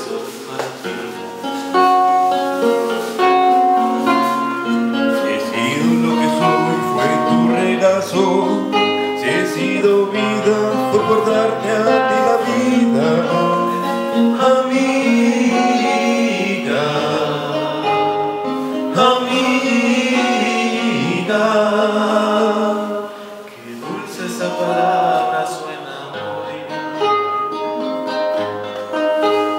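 Acoustic guitar played under two men singing a duet. Around twenty-three seconds in the music drops to a softer passage.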